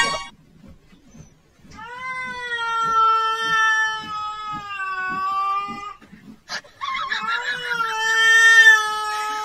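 A cat yowling at another cat: two long, drawn-out cries, the first starting about two seconds in and running about four seconds, the second following right after it and lasting almost three seconds.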